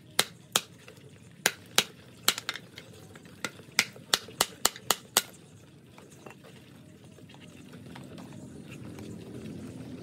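A large knife chopping with sharp, irregular knocks, about a dozen over the first five seconds. A low rushing noise then builds in the last couple of seconds.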